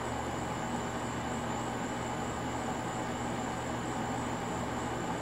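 Steady night-time background noise: an even hiss with a low, constant hum and a thin, unbroken high-pitched tone above it, with no distinct events.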